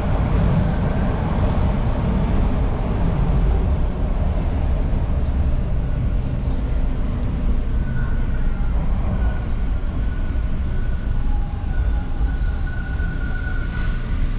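Toronto subway train running, heard from inside the car: a steady low rumble of wheels and motors, with a thin high whine joining in the second half and strongest near the end.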